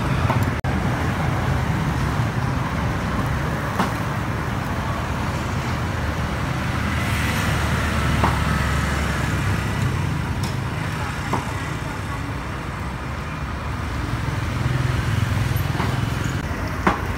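Steady street traffic noise, a low rumble of passing cars and motorbikes, with a few brief sharp clicks.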